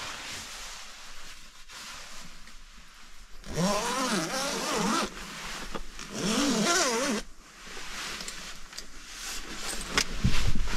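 Sleeping bag zipper being pulled in two strokes, each lasting a second or more, its buzz wavering in pitch as the pull speeds up and slows. Rustling of the bag's fabric comes between and after the strokes.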